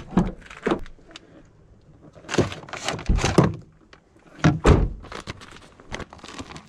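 A series of close, heavy thuds and knocks in uneven clusters: two near the start, three or four together in the middle, two more a little later and a single one near the end.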